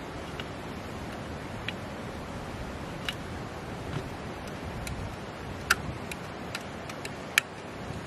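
Light metallic clicks and clinks, about a dozen irregular ones, as the hinged steel pot-support arms and legs of a compact folding camping gas stove are swung out and locked into place; two louder snaps come late on.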